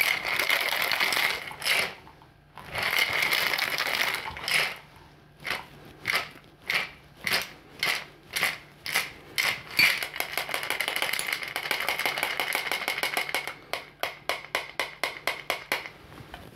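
A bar spoon scraping and tapping against a fine-mesh cocktail strainer while a blackberry gin sour is double-strained out of a metal shaker. Crushed blackberries are clogging the mesh, so the drink drains slowly. Long rasping stretches of scraping alternate with runs of quick taps, about two a second in the middle and faster near the end.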